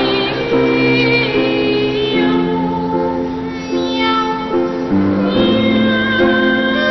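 Two boy trebles singing a comic cat duet in imitation cat voices, accompanied by a grand piano.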